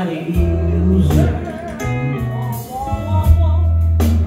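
Live amplified music: a man singing into a microphone over guitar and a heavy bass line, played through PA speakers.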